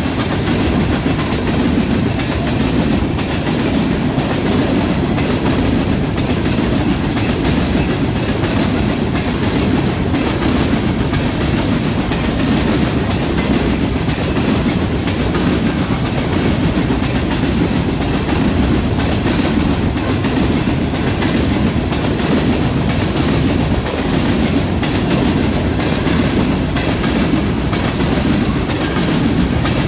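Freight train of covered hopper cars rolling steadily past: a constant rumble of steel wheels on rail, with clicking as the wheels cross rail joints.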